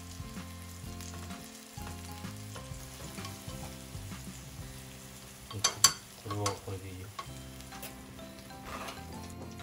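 Cod fillets frying in a frying pan with a steady sizzle, while pea shoots and shimeji mushrooms are stir-fried with chopsticks in a second pan. A few sharp clacks of cookware about six seconds in.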